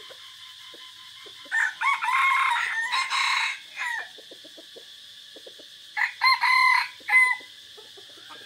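Caged red junglefowl decoy roosters crowing: two crows, one about a second and a half in and a shorter one about six seconds in, each broken into several notes.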